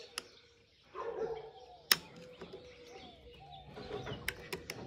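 Metal parts and tools clinking during the teardown of a tractor's power take-off, with a single sharp clank about two seconds in and a few lighter clicks near the end. Birds call faintly in the background.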